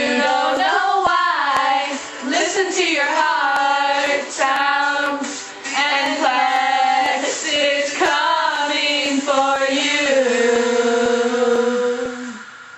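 Female voices singing a song about listening to heart sounds, in sung phrases that end on one long held note near the end.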